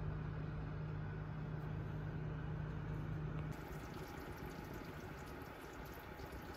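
Electrolux electric oven running with a steady low hum. About three and a half seconds in, the hum gives way to a fainter hiss with light crackling: the cheese gratin bubbling and sizzling as it bakes.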